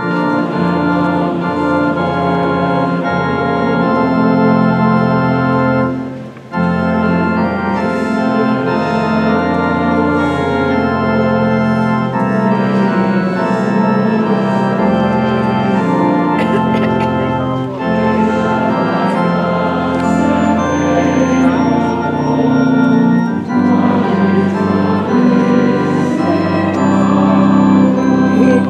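Organ playing slow, sustained chords, with a brief break about six seconds in.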